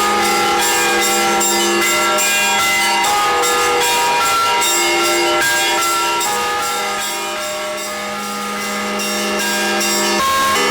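Church bells ringing a full peal: small bells struck in a rapid, continuous pattern over the steady hum of larger bells. The peal fades a little about eight seconds in, then swells back.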